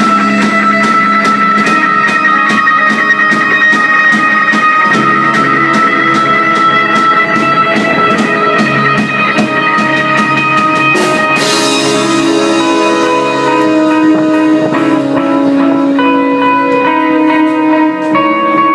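A band playing: guitar with a steady percussion beat, then a cymbal-like crash about eleven seconds in, after which held guitar notes ring on without the beat.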